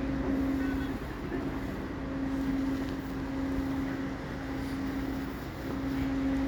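A boat's engine or onboard machinery running steadily: a constant low drone with a steady hum over it.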